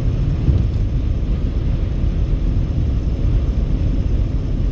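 Car driving at highway speed: steady low rumble of road and wind noise.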